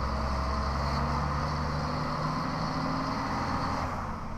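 Scania 113 truck's turbo-diesel engine pulling under load in fourth gear on a climb, heard from inside the cab as a steady drone. It eases off briefly near the end.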